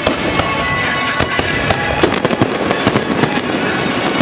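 Aerial firework shells bursting in rapid succession, many sharp bangs several times a second, with pop music playing underneath.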